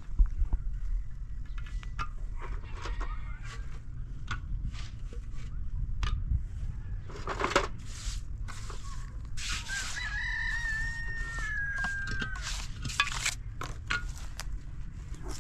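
A rooster crows once, a long call about ten seconds in that holds its pitch and falls away at the end. Around it come scattered knocks and scrapes of hollow concrete blocks being set in a row.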